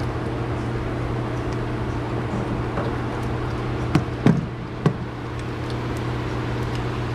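Rubber hoses and plastic intake plumbing being worked loose with a hose pick: three sharp clicks and knocks about four to five seconds in, over a steady low hum.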